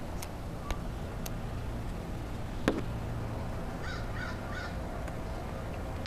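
A crow cawing three times in quick succession about four seconds in, over a steady low rumble. A single sharp knock comes a little before the caws.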